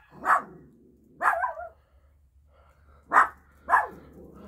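A dog barking in short, separate barks: two in the first second and a half, a quick pair about three seconds in, and another starting right at the end.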